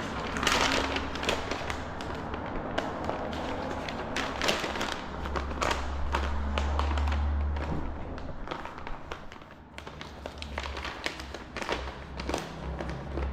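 Irregular knocks and taps of hand work on materials, with a low hum that swells for a couple of seconds around the middle.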